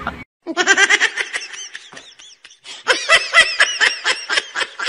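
A person laughing in quick, high-pitched bursts, breaking off briefly about halfway through and then laughing again.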